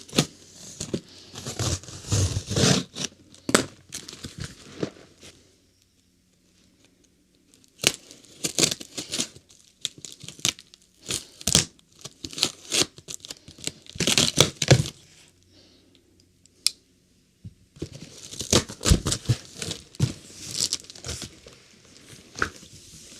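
Cardboard shipping box being opened and unpacked: packing tape and cardboard tearing and packaging crinkling in irregular bursts, with two short pauses.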